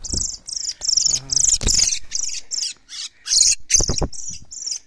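A thrush caught by the leg in a string snare, struggling and giving a rapid series of short, high-pitched distress squeals, about three a second, with a few dull thumps as it flaps.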